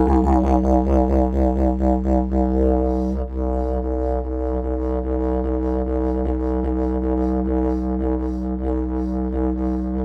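Background music built on a steady low drone, with a quick rhythmic pulse over the first three seconds that then eases off.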